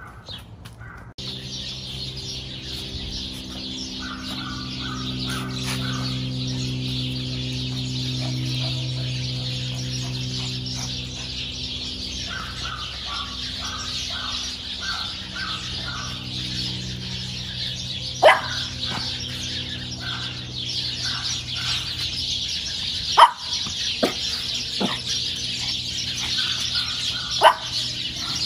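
Birds chirping in repeated short runs, over a steady low hum and a high steady hiss, with a few sharp high squeaks in the last ten seconds.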